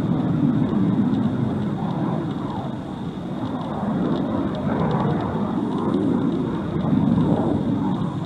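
A pair of F-35 fighter jets flying over in formation, their F135 turbofans making a low, rough jet rumble that swells and eases a few times.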